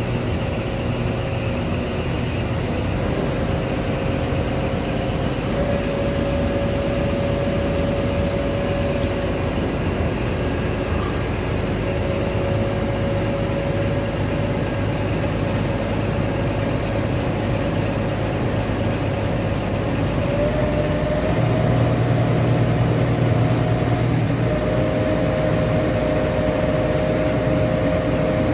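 Scania P hooklift truck's diesel engine running with the hydraulics working the hook arm as it lifts. A steady whine over the engine steps up in pitch a few times, and the low hum gets louder for a few seconds past the middle.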